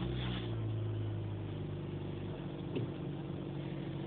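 Dodge Caliber SRT-4's turbocharged 2.4-litre four-cylinder engine running at a steady high idle just after firing up, heard from inside the cabin. The raised revs are the normal cold first start after a RealTune MS1K tune is flashed and the throttle recalibrated.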